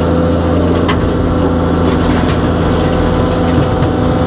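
Excavator diesel engine running steadily under working load, heard from inside the operator's cab, with a few light clicks over the top.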